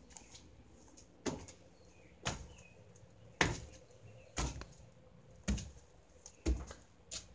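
Slow footsteps on wooden boards in the barn: seven single thuds at about one a second.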